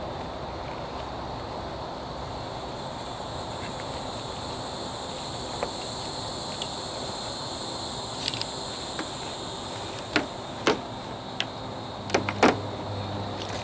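Scattered sharp plastic clicks and snaps as a Bosch Clear Advantage wiper blade and its adapter are handled and clipped onto the wiper arm, becoming more frequent towards the end with the loudest snap near the end, over a steady background hiss.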